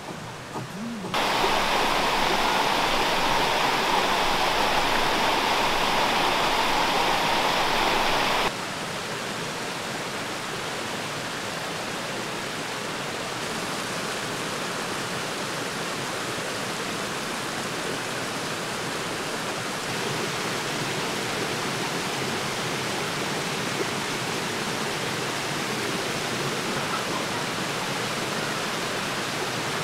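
Mountain stream running over rocks and small cascades: a steady rush of water, louder for the first several seconds, then dropping suddenly and stepping up slightly again about two-thirds of the way through.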